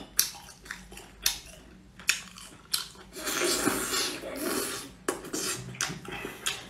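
Dishes and eating utensils clicking sharply against each other, about a dozen separate clicks, with a longer noisy stretch of handling about three seconds in.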